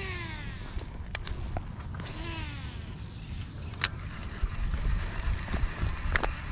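Baitcasting reel on a cast: its spool whirs and falls in pitch twice, each time for under a second, near the start and about two seconds in. A few sharp clicks of the reel follow, the loudest about four seconds in, over wind rumbling on the microphone.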